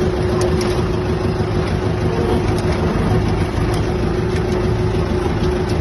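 Case 1845 skid steer's diesel engine running steadily, with a steady humming tone over it.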